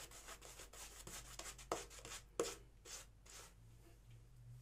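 Shaving brush loaded with thick lather being worked over a stubbled scalp, a run of quick, faint brushing strokes, several a second and unevenly spaced.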